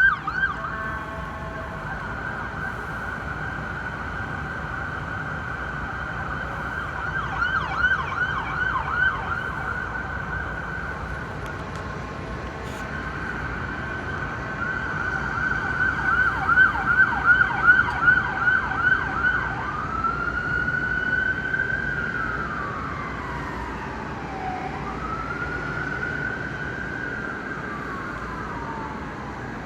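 Emergency vehicle siren, not the Japanese type, cycling through its modes: a held tone, then a fast yelp sweeping up and down several times a second, then from about twenty seconds in a slow wail rising and falling. A low steady rumble runs beneath it.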